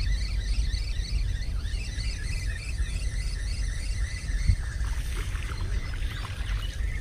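Outdoor ambience: a steady low rumble with rapid high chirping over it, and a single thump about four and a half seconds in.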